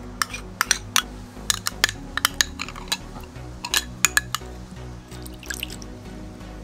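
Metal spoon clinking and scraping against small glass and ceramic dishes and a bowl as ingredients are scraped out and stirred: an irregular series of sharp clicks. Background music plays underneath.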